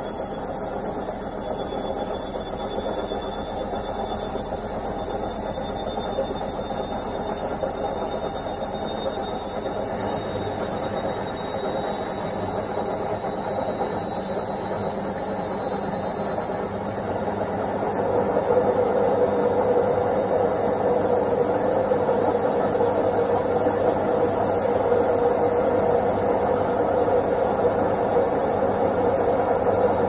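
Indesit IWC71252 washing machine on its spin cycle, the drum speeding up: a steady rushing mechanical noise with a thin motor whine slowly rising in pitch, growing louder a little past halfway.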